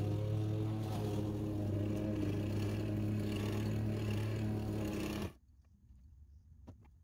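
Craftsman M270 gas push mower's 159 cc engine running steadily, a pitched hum. About five seconds in the sound cuts off abruptly, leaving only a few faint clicks.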